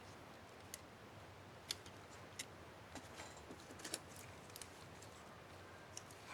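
Scattered faint small plastic clicks from a laptop spacebar keycap and its clips being handled on the keyboard, at irregular intervals.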